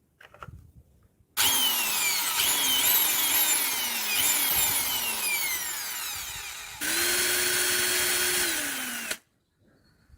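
A small electric motor whining at high speed. It revs in several short pulses, each falling in pitch, then runs steadily for about two seconds before winding down and cutting off.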